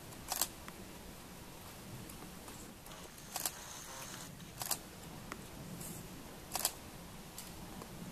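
Camera shutter clicking four times at uneven intervals a second or more apart, some clicks doubled, over a steady low outdoor background.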